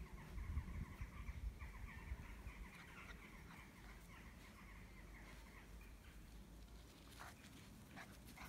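An animal's rapid run of short, repeated high chirping calls, several a second, fading out about three and a half seconds in, over low rumbling on the microphone.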